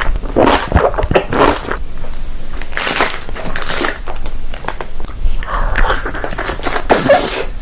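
Loud crunching bites and chewing of crisp food, in irregular bursts.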